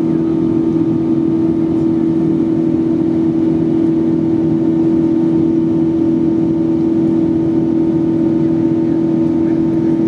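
Cabin noise of a Boeing 777-200 in its climb after takeoff, heard from a window seat beside the wing: a steady engine drone with one strong low hum and fainter higher tones over a constant rush of air.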